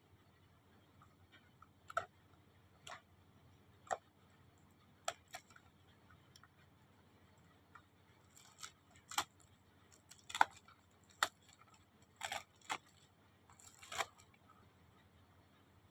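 Packaging being handled and opened: about a dozen short, sharp clicks and snips, irregularly spaced and coming more often in the second half.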